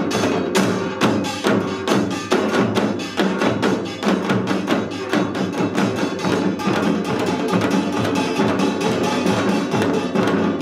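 Utdari samul nori ensemble playing: janggu hourglass drums and buk barrel drums struck in a fast, dense, unbroken rhythm, with kkwaenggwari and jing gongs ringing over the drumming.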